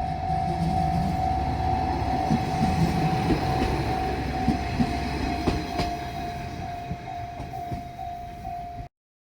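Japanese level-crossing warning bell ringing in a steady, evenly pulsing tone while a JR Shikoku diesel train rumbles past, its wheels clicking over the rail joints. The sound cuts off suddenly near the end.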